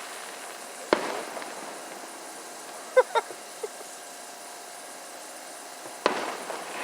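Aerial firework shells bursting: a sharp bang about a second in and another near the end, each trailing off in a short rolling echo. Midway, two quick, short pitched yelps close together.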